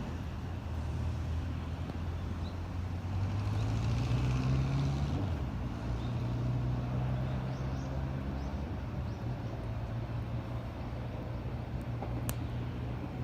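Motor vehicle engine running, a low hum that rises in pitch from about three seconds in and drops back about five seconds in, over the general din of traffic.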